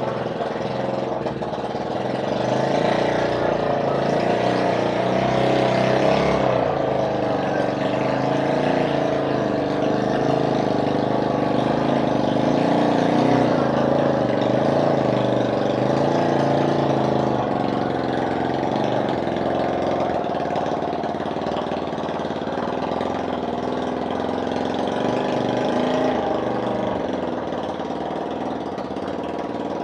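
Motorcycle engine of a homemade sand-hauling vehicle running steadily, its pitch and loudness rising and falling slightly.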